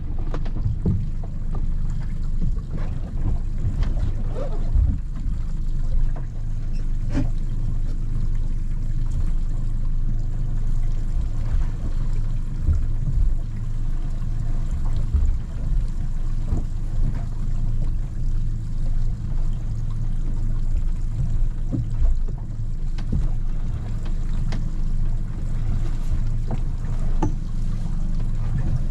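Scattered knocks and clunks on a small boat's deck and bow as the anchor rope is lifted over and the retrieval buoy is put on it, over a steady low rumble.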